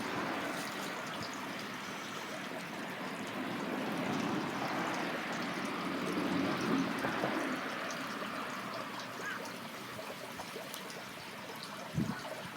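Water in a swollen channel running steadily, with a short knock near the end.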